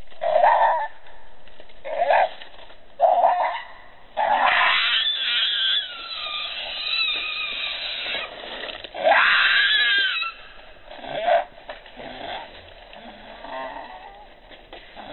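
Newborn pig-tailed macaque infant crying: short squeaky calls about a second apart, then long shrill screams that fall in pitch, about four seconds in and again around nine seconds, easing into weaker whimpers near the end. These are the distress cries of an infant lying apart from its mother.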